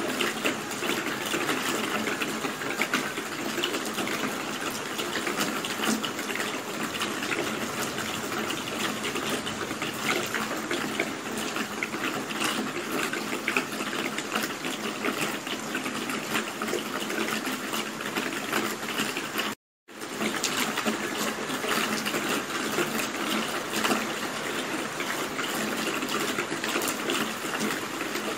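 Steady rain falling, a dense patter of drops with no let-up, broken once by a split-second gap of silence about twenty seconds in.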